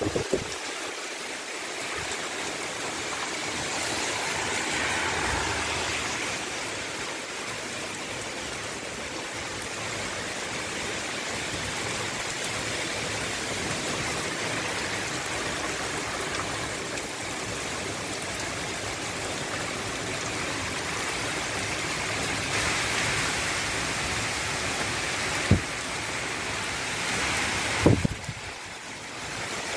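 Heavy rain pouring down in a steady, even hiss. Two sharp knocks sound near the end.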